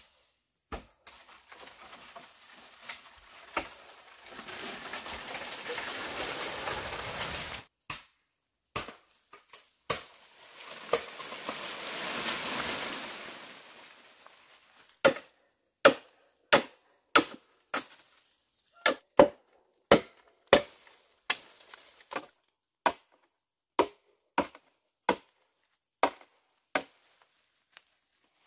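A blade chopping bamboo: sharp single strikes, with two long rustling, crashing stretches of leafy bamboo stems and branches in the first half, then a steady run of chops about one and a half a second to the end.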